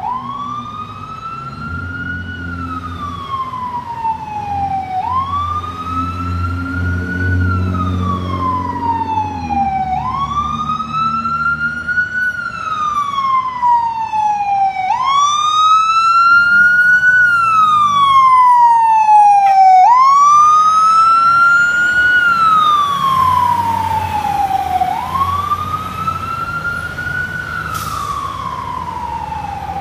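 Fire engine wail siren, with each cycle rising for about two seconds and falling for about three, repeating every five seconds. Vehicle engines run underneath. It grows louder as the truck approaches, is loudest about two-thirds of the way through, then fades as the truck moves away.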